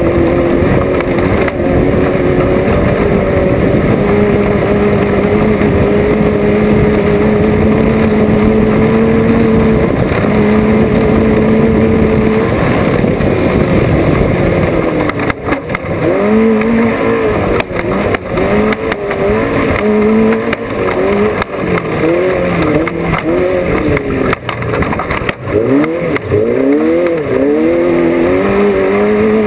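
Off-road race vehicle's engine running hard at high revs, its pitch creeping slowly upward. About halfway in the revs drop, and the throttle is then repeatedly lifted and reapplied, the engine note rising and falling about once a second.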